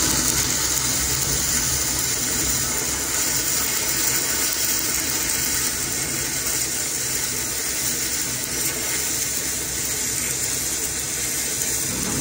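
Dual-shield flux-cored wire welding arc (.045 wire) running a continuous bead on a steel I-beam joint: a steady, unbroken sizzle.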